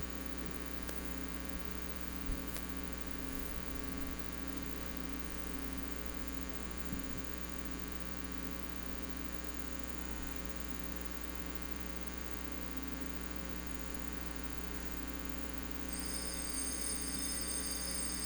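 Steady electrical mains hum from the sound system during a silent pause. Near the end a high, steady ringing joins it for about two seconds.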